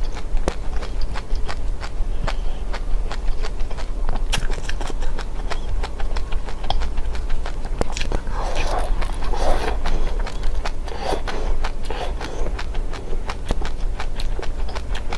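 Dry seeds being bitten and crunched: a dense, irregular run of sharp little clicks and cracks, over a steady low hum.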